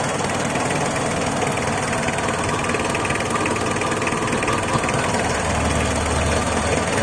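Mitsubishi 4D56 four-cylinder diesel engine idling steadily, running well on its newly fitted timing belt, with a low hum growing stronger about five seconds in.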